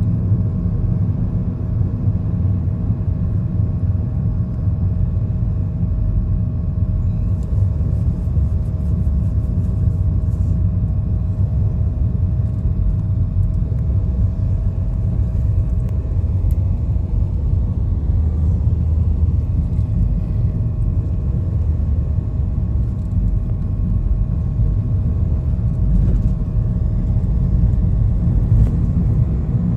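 Steady low rumble of a moving road vehicle, engine and tyre noise, with a faint steady whine running under it.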